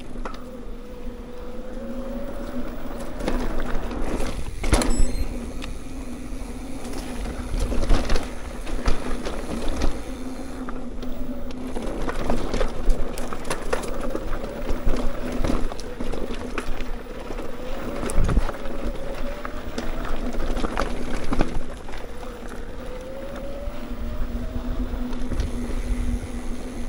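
Mountain bike riding over a dirt trail: a steady hum over low rumble, with scattered sharp knocks and rattles from bumps.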